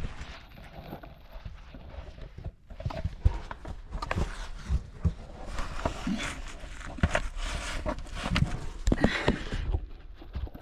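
Irregular knocks and scuffs of cavers' footsteps and gear on rock as they move through the cave, with some breathing.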